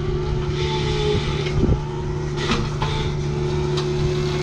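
Kubota U55-4 mini excavator's diesel engine running steadily under load, driving an MTL XC5 hydraulic brush cutter, with a few sharp cracks as the cutter hits brush.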